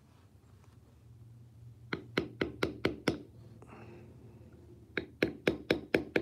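A mallet striking a leather stamping tool in two quick runs of about six taps each, re-tooling the center of a carved flower to sharpen it up so that it stands out in the leather.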